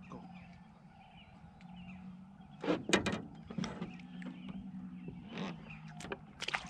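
Steady low hum of a bow-mounted electric trolling motor, with several sharp knocks and clicks of fishing tackle being handled in the boat, the loudest about three seconds in and more near the end.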